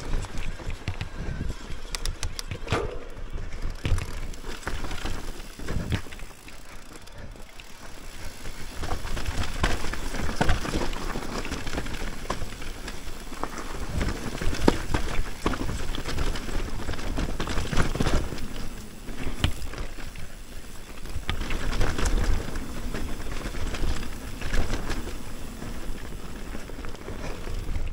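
Mountain bike riding over a rough trail: a continuous low rumble with many short knocks and rattles from tyres and bike over bumps, easing off briefly twice.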